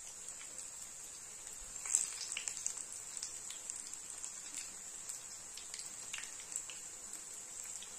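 Breaded beetroot cutlets shallow-frying in hot oil: a steady sizzle dotted with many small pops and crackles, with one louder crackle about two seconds in.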